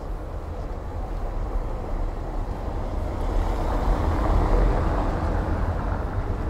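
A road vehicle passing by on the street. Its engine and tyre noise swells to a peak about four and a half seconds in, then fades away over a steady low rumble.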